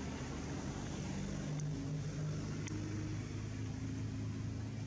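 A steady low motor drone, its hum shifting slightly in pitch over a background hiss, with a couple of faint ticks.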